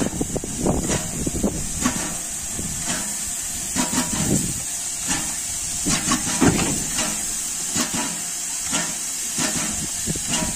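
Pt47 steam locomotive moving slowly, with a steady hiss of steam and a run of exhaust chuffs about two a second.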